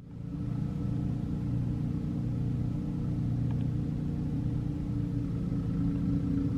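Two-stage snowblower's engine running steadily as it clears a snow-covered driveway.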